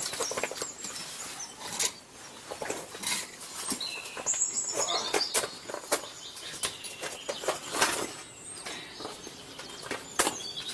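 Footsteps crunching and scuffing on packed ice and snow in a narrow rock crevice, an uneven run of clicks and scrapes. A small bird chirps a few times about four to five seconds in and again near the end.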